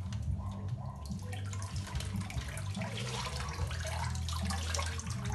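Water sloshing and running off a helmet as it is lifted out of a hydrographic (water transfer printing) dipping tank, over a steady low hum.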